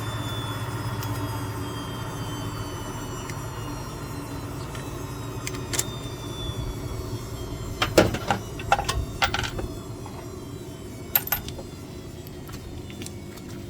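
Several sharp metallic clinks and clanks of hand tools being handled, most of them bunched together in the middle, over a steady low mechanical hum carrying a faint high whine that slowly falls in pitch.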